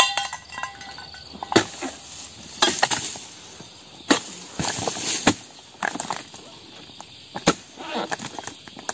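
Dodos chisel chopping into the bases of oil palm fronds and bunch stalks: a run of sharp, irregularly spaced cutting strikes.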